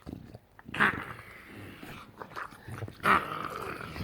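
English bulldog making weird vocal noises, with two loud outbursts about a second in and again about three seconds in, and quieter rough sounds in between.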